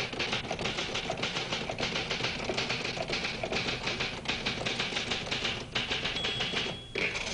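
Typewriter keys striking in a rapid, uneven run, with a short high ring and a brief pause near the end.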